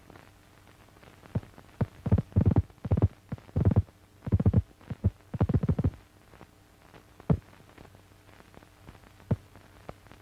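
Key thumps heard in a telephone receiver: uneven groups of dull thumps over the first six seconds, then two lone thumps. They come at the start and end of each telegraph impulse, which crossfires into the telephone channel because the line's two wires have unequal resistance and the circuit is unbalanced.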